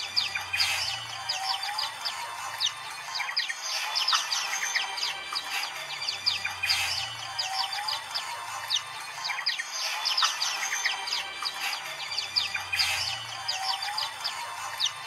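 A dense chorus of many white-eyes (pleci) chirping and twittering at once: rapid, overlapping high-pitched calls and song phrases with no pause. This is a massed 'ombyokan' white-eye chorus.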